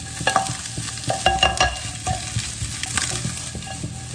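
Vegetables and egg stir-frying in a nonstick pan over a high gas flame: steady sizzling as the pan is tossed, with a spatula knocking and scraping against the pan, briefly squeaking about a second in.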